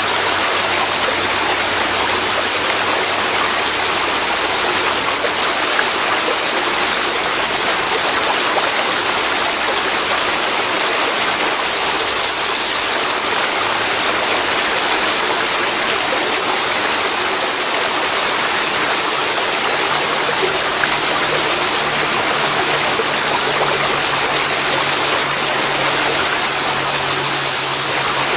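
Steady rushing of a waterfall pouring into a river, a loud, even wash of water noise with no let-up.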